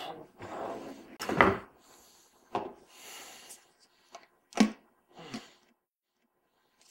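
A man's breathy exhales mixed with a handful of knocks and clunks from items being handled, the loudest knock about one and a half seconds in and another sharp one about four and a half seconds in.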